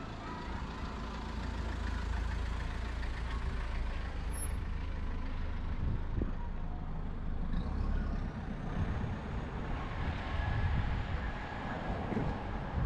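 City street traffic, with a heavy road vehicle's engine running low and close, then easing off after about eight seconds. A brief high squeal comes partway through.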